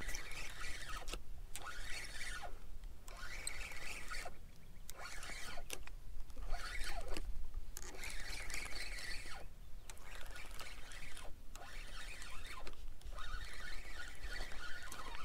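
Spinning fishing reel being cranked: a whirring, rattling sound in stretches of a second or two with short pauses between them, and a few brief squeaks.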